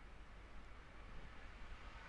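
Faint steady hiss with a low hum: room tone and recording noise, with no distinct sound events.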